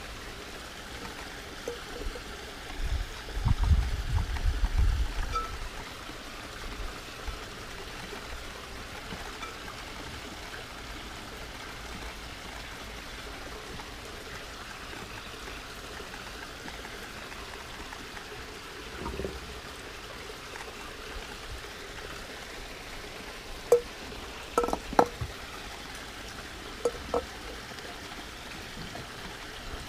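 Steady trickling water from a garden water feature. There is a low rumble a few seconds in, and a few sharp clicks near the end as lava rock is set into the glass bowl terrarium.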